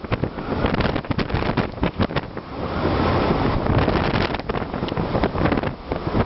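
Storm-force wind blasting over a ship's open deck and buffeting the microphone in loud, irregular gusts, with a steadier rushing stretch about halfway through.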